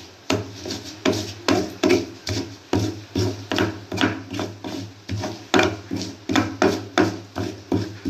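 Chilies being pounded and ground with a stone pestle in a stone mortar: a steady run of sharp knocks with grinding scrapes, about two to three strokes a second.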